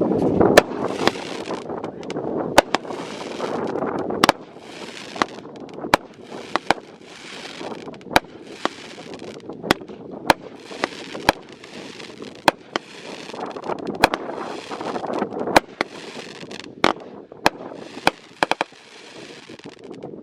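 Fireworks going off in a long run of sharp bangs, roughly one a second, each followed by a short burst of crackling.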